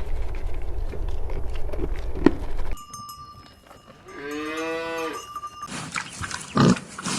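A cow mooing once, a single rising-then-falling call about four seconds in, after a few seconds of low rumble like wind on the microphone. Near the end come a few short low sounds, one of them loud.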